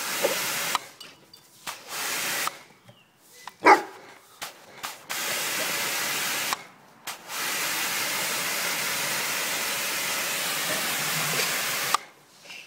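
Mini pressure washer jet spraying with a steady hiss that starts and stops several times, running unbroken through the second half. A Cane Corso gives one short bark, the loudest sound, about four seconds in.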